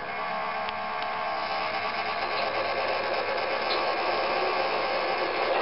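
An MTH DCS model diesel locomotive's onboard sound system playing its engine start-up sounds: a steady mechanical hum and whir with many tones, slowly growing louder as the simulated diesel comes up.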